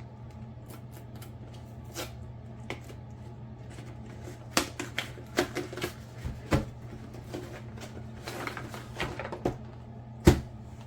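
Doll box packaging being opened by hand: scattered clicks, rustling and crinkling of cardboard and plastic, busier from about four seconds in, with one sharp knock near the end. A steady low hum runs underneath.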